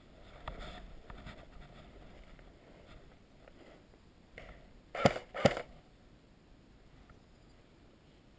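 Faint rustling, then two sharp pops about half a second apart, a few seconds in.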